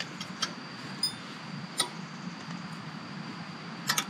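A few light, scattered clicks and taps from hands handling gear, with a short cluster near the end, over a steady faint low hum and a steady high-pitched tone.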